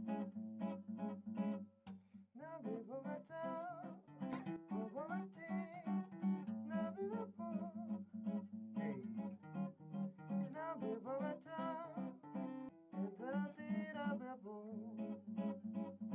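Acoustic guitar strummed in a steady rhythm, with a man singing a melody over it from about two and a half seconds in; the guitar drops out briefly just before the singing starts.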